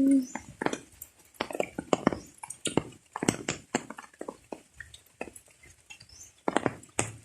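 Rainwater dripping, irregular sharp drops tapping on hard surfaces several times a second.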